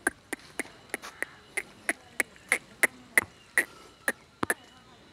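Brisk footsteps on hard dry ground, sharp regular clicks about three a second, spacing out near the end.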